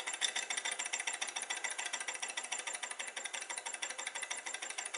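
Small high-temperature Stirling engine demonstrator running under its alcohol burner: a rapid, even mechanical clatter from its pistons, crank and spinning flywheel. It runs poorly, its speed not steady.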